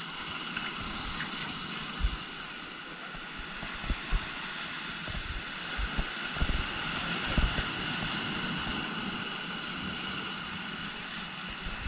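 Ocean surf breaking against rocks and pouring through a rocky gap into a tidal swimming hole, a steady rushing wash of water. Wind buffets the microphone in a few short low thumps.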